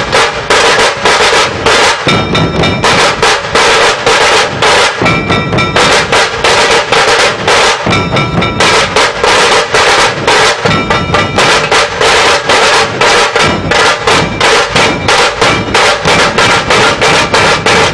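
Traditional dhol drums played by a procession drum troupe, beating a fast, even rhythm of loud strikes.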